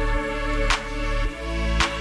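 Background music: sustained chords over a deep bass, with a sharp beat about once a second.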